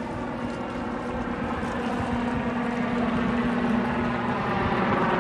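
Helicopter flying overhead: a steady engine and rotor drone.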